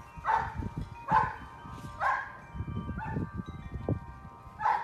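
A dog barking about once a second, five barks, over wind chimes ringing steadily as they are shaken by an earthquake.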